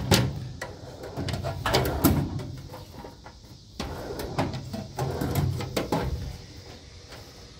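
Steel tool-chest drawer being slid in and out on its runners, with a string of sharp clicks and knocks.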